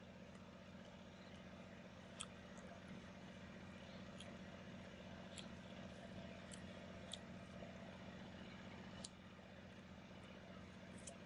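Faint, scattered sharp clicks of roasted pumpkin seeds being picked from a ceramic bowl and eaten, about seven or eight at irregular intervals, over a steady low hum.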